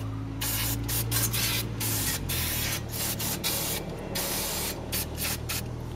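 Aerosol brake cleaner sprayed onto a rear wheel hub in a series of hissing bursts, some short and some longer, to clean it down after drilling.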